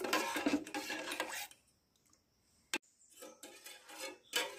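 Metal spoon stirring thick milk in a stainless steel bowl, scraping and clinking against the steel, to dissolve the sugar. The stirring drops out for about a second in the middle, with a single click just after.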